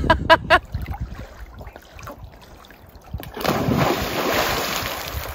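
A few short, sharp sounds at the start, then a big splash about three and a half seconds in as a jumper hits the lake from a height, the water noise fading over a couple of seconds.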